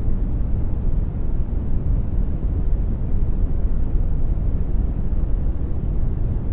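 Generated brown noise: a steady, even deep rumbling hiss, strongest in the bass and thinning toward the top, with no changes.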